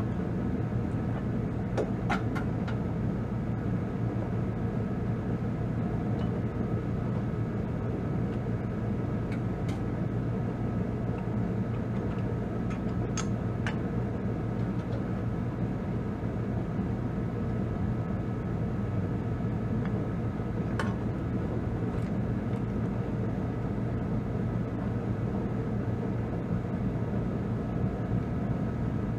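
Kubota B2650 tractor's three-cylinder diesel engine idling steadily, with a few short light clicks on top.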